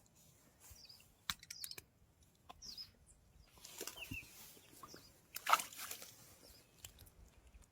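A hooked crucian carp thrashing: scattered flaps and splashes, with the loudest flurry about five and a half seconds in.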